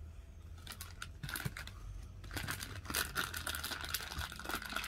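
Light rustling and crinkling with many quick small clicks, getting busier about two seconds in.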